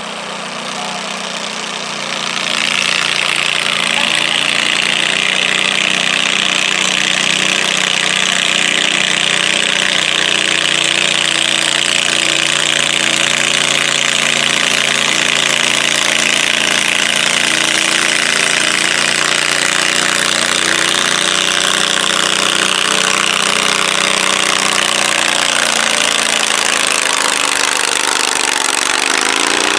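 John Deere 317 garden tractor engine running under a full pull load as it drags a stoneboat weight sled. The engine picks up and gets louder about two seconds in, then holds a steady note. Near the end the note drops as the engine bogs under the sled's building weight.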